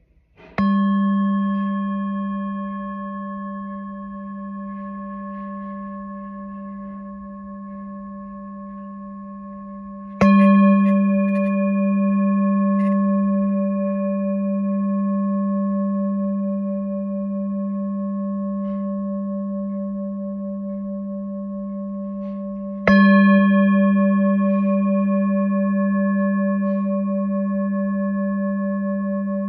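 Throat chakra singing bowl struck three times: about half a second in, about ten seconds in, and about twenty-three seconds in. Each strike rings on with a low hum and several higher overtones that fade slowly, with a slight wavering pulse as they sustain.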